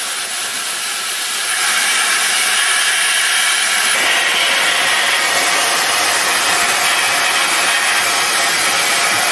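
Steady hiss and running noise of an 1892 class 7a steam locomotive on the move, heard from its footplate. The noise grows louder about a second and a half in.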